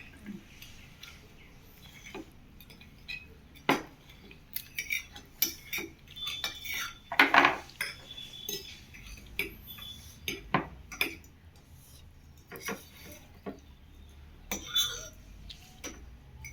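Cutlery clinking and scraping against plates during a noodle meal: irregular sharp clicks, with the loudest clatter about seven seconds in.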